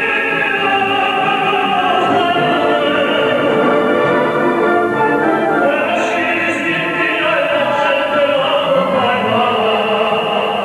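Operatic singing with orchestral accompaniment: a classical voice holding long, sustained lines over the orchestra.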